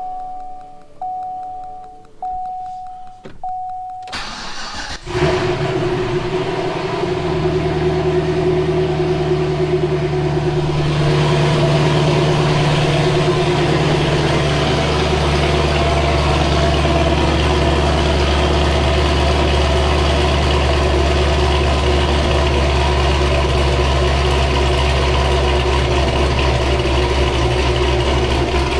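Repeated in-car warning chime for the first few seconds, then the 2011 Cadillac CTS-V's supercharged 6.2-litre V8 with Borla exhaust cranks about five seconds in, catches and settles into a steady idle. It is being idled on fresh spark plugs and plug wires to check for a cylinder 8 misfire, and the owner judges it is no longer missing.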